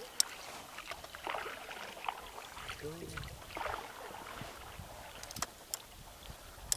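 Small boat on the water: water sloshing and swishing against the hull, with a sharp knock just after the start and a few fainter clicks near the end.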